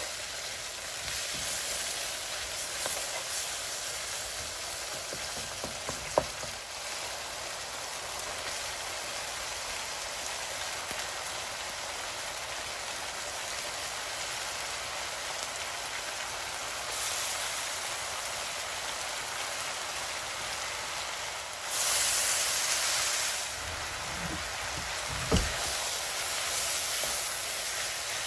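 Chicken, onions and egg noodles sizzling in a hot frying pan while being stirred and tossed with a wooden spatula, with a couple of sharp knocks of the utensil against the pan. The sizzle surges louder for a second or two about 22 seconds in.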